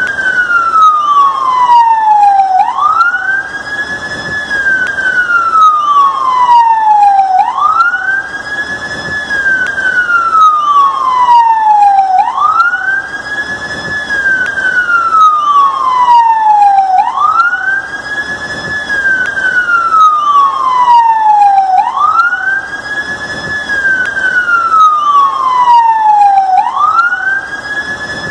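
Siren of a fire brigade AEM emergency-medical vehicle sounding a wail. Each cycle sweeps up quickly, holds briefly at the top, then falls steadily, repeating about every five seconds.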